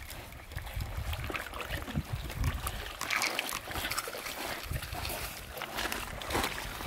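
Small water splashes and lapping around a person floating in an inflatable tube on a lake: an irregular patter of little splashes, with a couple of louder splashes.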